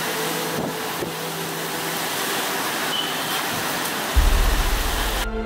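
Hurricane wind and driving rain as a steady rush of noise, with faint music underneath. About four seconds in, a deep bass note comes in, and near the end the storm noise cuts off suddenly, leaving only the music.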